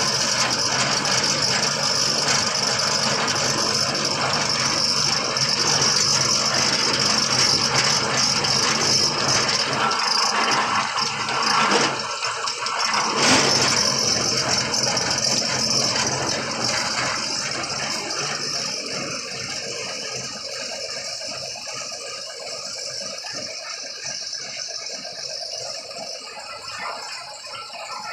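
Steady machinery noise with a continuous rattle, easing off gradually over the second half.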